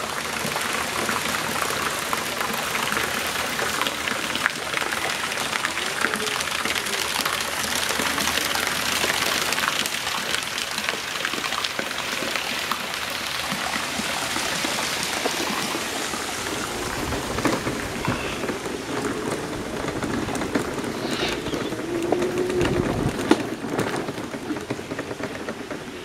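Steady rushing, rain-like noise, with some low rumbling in the second half.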